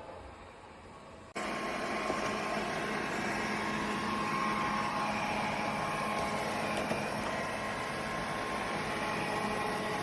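Airzeen R7 robot vacuum cleaner running: a steady whir of its suction motor and brushes, which becomes suddenly louder a little over a second in.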